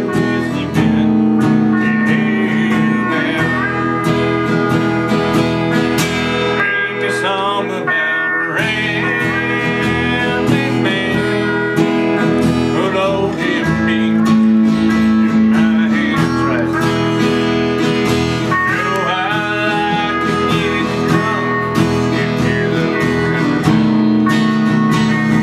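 Guitar music playing steadily, with sustained notes and some bent notes over a recurring low note.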